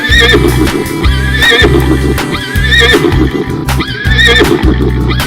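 Upbeat background music with a steady bass beat and a short warbling high figure repeating about every second and a half.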